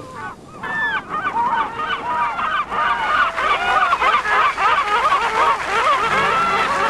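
A flock of geese honking, many short calls overlapping and growing denser; music comes in near the end.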